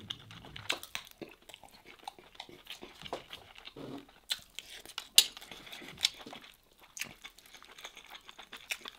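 Close-up eating sounds: chewing, with a man's hands pulling apart rice and fatty lamb. A few sharp clicks of a spoon against the metal serving platter come about four to six seconds in.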